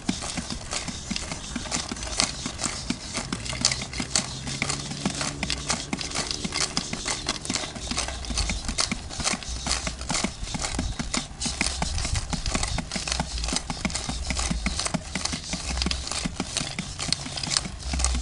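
Homemade percussion playing a fast, unbroken rhythm: a rattling shaker, most likely the aluminium-can maracas, over low drum thuds from the can-built hollow-log drum.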